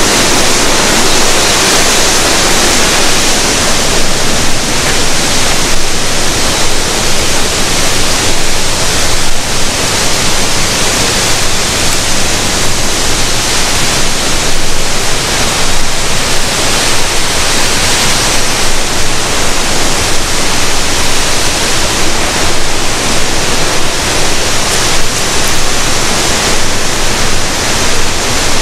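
Loud, steady rush of water.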